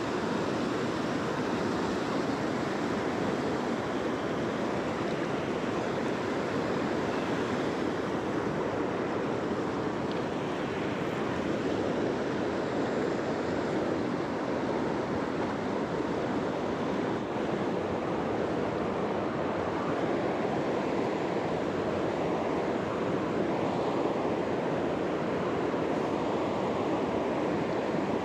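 Whitewater river rapids rushing steadily over boulders.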